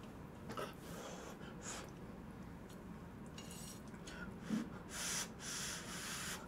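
Close-miked eating sounds of sticky instant black-bean noodles: short soft slurps and chewing, with a longer slurp a little after the middle.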